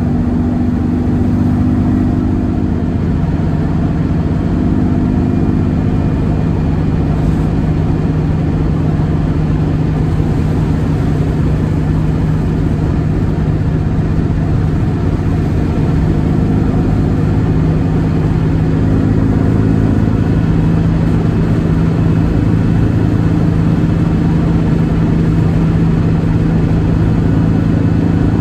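A 1958 Volkswagen Beetle's air-cooled flat-four engine running steadily, its pitch dropping about three seconds in and climbing again a little past the middle as the engine speed changes.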